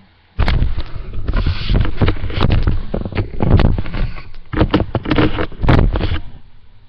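Handling noise from a webcam being picked up and moved: heavy rumbling and rubbing on its built-in microphone with a run of knocks and clicks, dying away near the end as the camera is set down.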